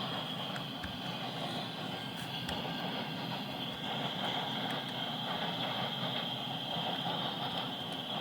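Steady rumble of a train, with a steady high-pitched hiss above it.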